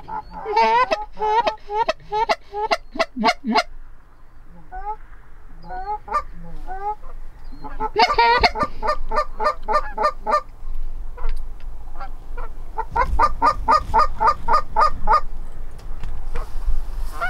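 Canada geese honking: rapid runs of short honks in three loud bursts, with fainter honks between them.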